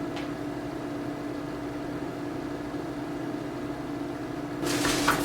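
Steady hum of a running kitchen appliance, with two constant tones under it. Near the end a broad hiss starts and keeps going.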